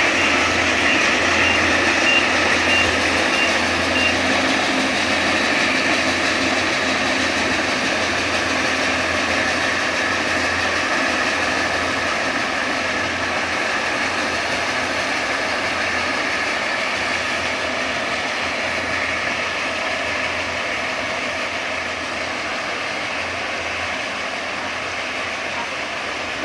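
Kubota rice combine harvester running, its engine and threshing machinery making a steady mechanical din that slowly grows quieter. In the first few seconds a high electronic beeper sounds about twice a second.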